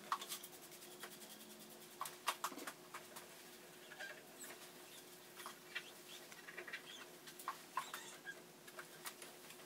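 Faint, scattered clicks, taps and light rustles of small objects being handled and set down on a vanity desk, over a faint steady hum.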